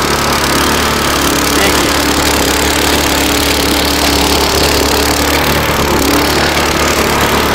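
Small single-cylinder 7 HP petrol engine of a homemade mini tractor running steadily with the throttle opened, driving the rotary tiller through the soil.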